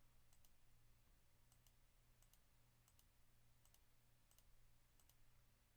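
Faint computer mouse clicks, in quick press-and-release pairs about once a second, over near silence.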